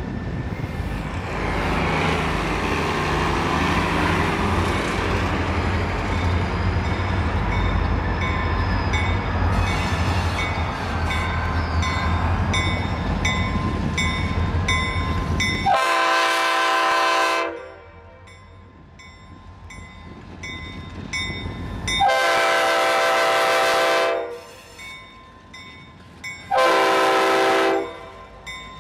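Reading & Northern diesel locomotive running as it approaches, its engine a steady rumble, then sounding its multi-chime air horn three times: two long blasts and a shorter third.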